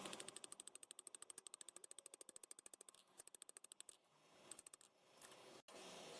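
Faint rapid mechanical clicking, about fifteen even ticks a second, for roughly three seconds, then a few scattered ticks.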